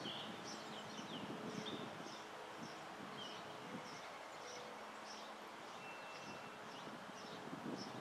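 Backyard outdoor ambience: a steady faint hiss with a short high chirp repeating about twice a second and a few scattered bird notes, including one brief thin whistle about six seconds in, over some low rumbling.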